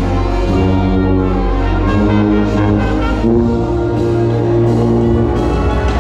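Wind ensemble playing held brass chords with a strong low bass line, the tuba close to the microphone, the chords changing about every second.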